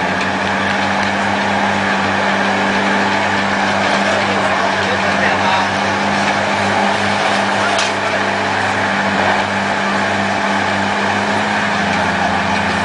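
Heavy truck engine running steadily, a constant low drone.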